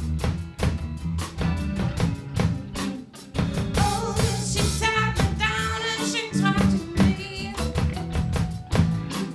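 A band playing rock-style music with a steady drum beat and bass, and a voice singing a phrase about halfway through.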